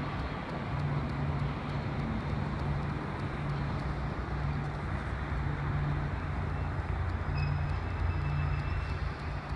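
A distant helicopter, heard as a steady low drone.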